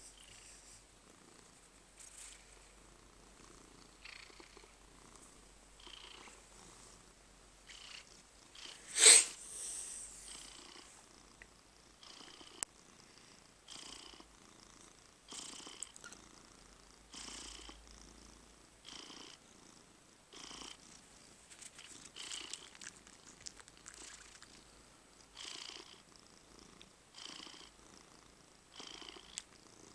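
Domestic cat purring, the purr swelling and fading in a slow, even rhythm roughly every second and a half. About nine seconds in there is one brief, much louder sharp sound.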